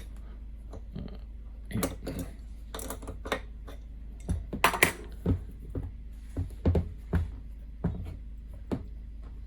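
Irregular metal clicks, knocks and clinks as the moving parts of a toolpost grinder are worked by hand, over a steady low hum.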